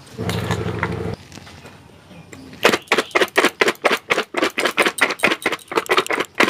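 Chana chaat being shaken inside steel dishes clamped together, the chickpeas and chanachur rattling against the steel in a fast, even series of sharp strokes, about four to five a second, starting a little over two seconds in. A brief steady hum comes first.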